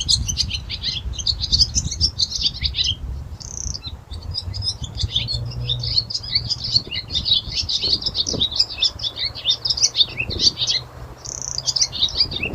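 A group of small birds chirping rapidly and continuously, many short high calls overlapping, with brief lulls about three and a half seconds in and near the end. A low steady hum runs underneath.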